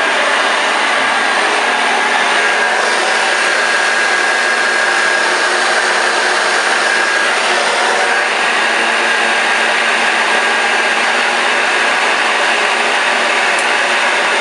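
1987 Hoover Junior U1206 upright vacuum cleaner running steadily: a loud, even rush of air with a steady high whine from the motor.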